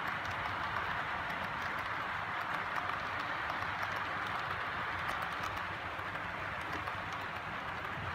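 HO-scale model freight cars rolling past on the track: a steady rolling noise of metal wheels on rail, with faint light clicks scattered through it.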